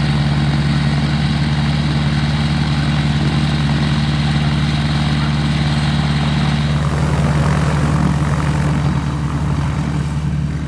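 Magni Gyro gyroplane engines running with their pusher propellers turning: a loud, steady drone. About seven seconds in a hissier rush of propeller wash joins it.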